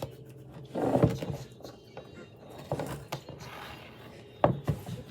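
Kitchen clatter from utensils and a baking pan being handled: a few separate knocks and clunks, the loudest about a second in and a sharp one near the end, with faint scraping and handling noise between.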